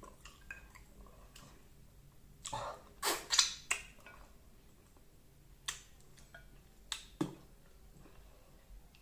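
Close-up eating sounds of someone biting on and sucking at cooked animal bones for the marrow. Scattered sharp cracks and clicks, with a cluster of louder sucking sounds about three seconds in.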